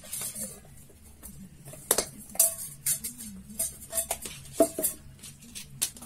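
Scattered clinks and taps of a metal tuna tin and its metal lid being handled and fitted together, some with a brief metallic ring.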